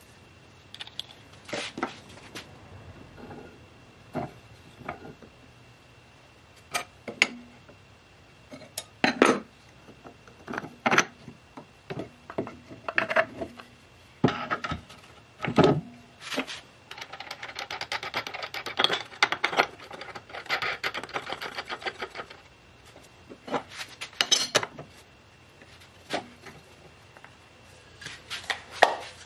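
Handling sounds at a wood lathe: scattered knocks and light clinks as a plywood steady-rest part and its metal hardware are handled and set on the lathe bed, with a run of fast, light clicking in the middle.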